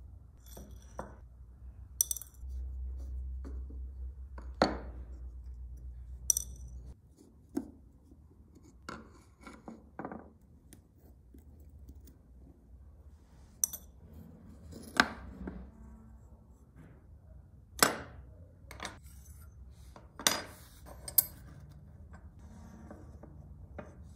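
Small metal parts of an antique magnifying glass frame being handled and set down on a wooden workbench: scattered light clicks and clinks, about a dozen at irregular intervals. A low hum sits under the sounds for a few seconds near the start.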